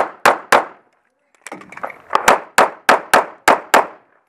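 Semi-automatic pistol firing a rapid string of aimed shots about a third of a second apart: three shots, a pause of under a second while the shooter moves to a new position, then about seven more shots, each with a sharp crack and a short ringing echo.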